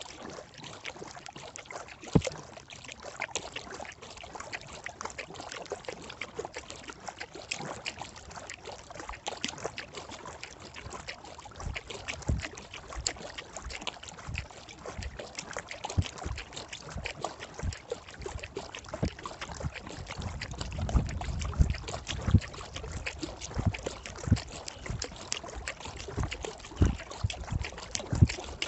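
Kayak being paddled on a lake: water trickling and splashing off the paddle blades with each stroke, with sharp knocks now and then. A deeper rumble comes in about two-thirds of the way through.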